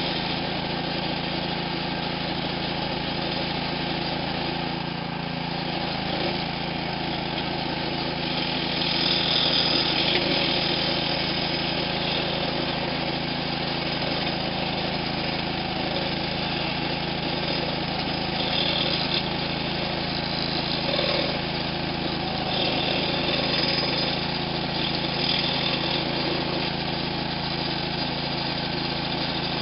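Small gasoline engine of a walk-behind lawn edger running steadily as it is pushed along, cutting a narrow trench in the turf for buried dog-fence wire. A brighter hiss swells now and then over the engine, loudest about nine to eleven seconds in.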